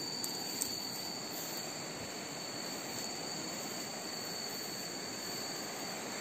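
Steady rush of a shallow, rocky river flowing, with a constant high insect trill running over it.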